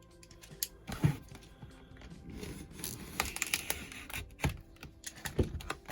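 Pocket knife packaging being handled: irregular clicks, taps and rustles, with a few louder knocks.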